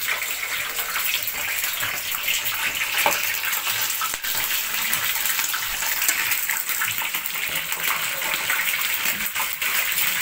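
Chicken pieces deep-frying in hot oil in a shallow pan: a steady sizzle full of fine crackling and popping.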